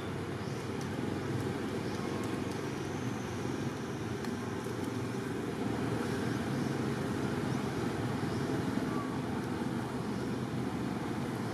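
Steady low outdoor background rumble with no distinct events, faint short high chirps or ticks over it.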